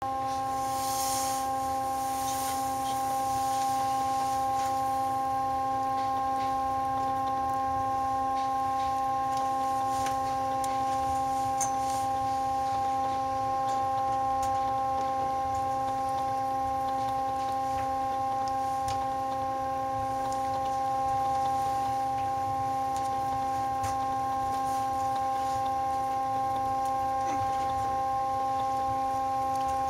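Montreal Tower tram (inclined funicular cabin) climbing: a steady whine of several pitches held constant over a low rumble, with a brief hiss near the start.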